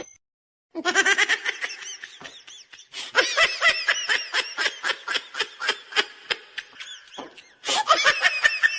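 A person laughing hard in a long run of quick, high-pitched bursts, with a brief pause about seven seconds in before the laughter starts again.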